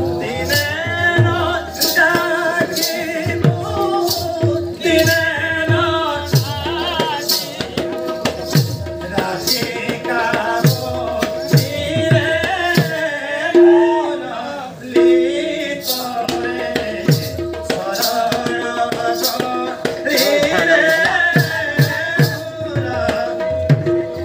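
Live Sambalpuri Karma folk song: a singer's voice in phrases over a steady held tone, with drum strokes that drop in pitch and a fast run of sharp rattling percussion beats.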